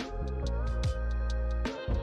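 Background music: an electronic track with a deep bass line, a kick drum about once a second and quick hi-hat ticks.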